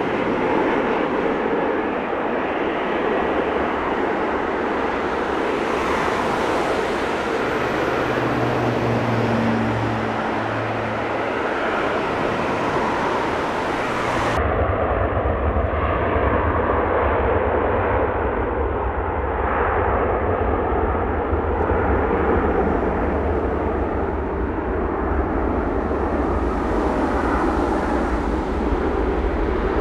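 Airbus A330-200 jet engines on the runway: the landing and rollout first. About halfway there is a sudden change to a deeper, steady rumble of the engines at takeoff thrust.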